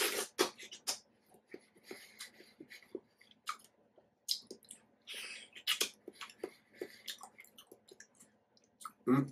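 A person chewing soft, juicy ripe mango close to the microphone, with wet smacks and mouth clicks at irregular intervals.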